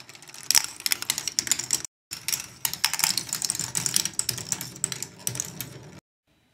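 K'nex ball machine running: plastic balls rolling and knocking along plastic tracks and lift parts, a dense, uneven clatter of many small clicks. It cuts out briefly about two seconds in and stops abruptly near the end.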